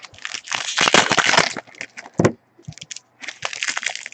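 Trading-card pack wrapper being torn open and crinkled: a dense run of crackling for about the first second and a half, then scattered crackles and a short flurry near the end.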